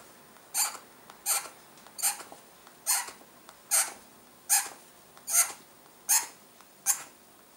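A stylus scoring short lines into a thin sheet of gold embossing foil: nine brief scratchy strokes at an even pace, about one every 0.8 seconds.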